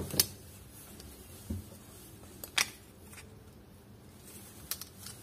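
A few light clicks and taps from handling a Samsung E1200Y keypad phone's circuit board, display and keypad membrane as they are fitted together by hand, with a soft knock about one and a half seconds in and a quick pair of clicks near the end.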